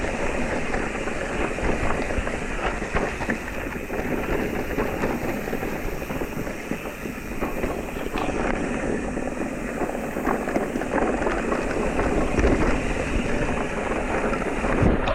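Electric mountain bike riding over rough, rocky trail: tyres rolling and crunching on stones, with a constant run of small clicks and knocks as the bike jolts and rattles.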